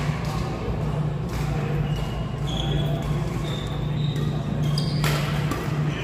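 Badminton play in an indoor hall: two sharp racket strikes on the shuttlecock, about a second in and near the end, with short high squeaks of shoes on the court floor in between, over a steady low hum.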